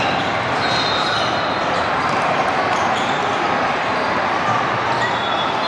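Indoor basketball game sounds: balls bouncing on a hardwood court over a steady din of crowd chatter, echoing in a large hall.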